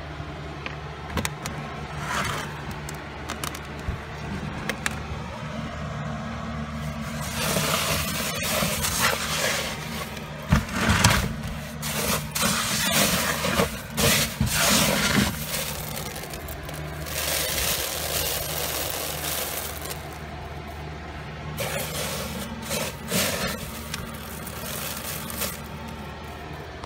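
Hand stirring and raking through dry mustard seeds and chaff in a plastic tub: a gritty rustling in bursts, heaviest in the middle stretch, over a steady low hum.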